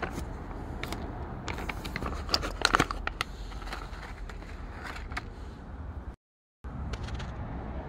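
Crinkling and crackling of a resealable plastic cat-treat pouch being opened and handled, with a cluster of sharp crackles about two and a half seconds in. The sound cuts out briefly about six seconds in.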